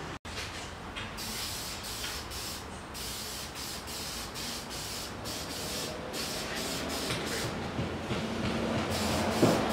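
Aerosol spray can of self-etching primer hissing in a string of short bursts with brief gaps between them, as a coat goes onto the metal frame. A single sharp clack sounds near the end.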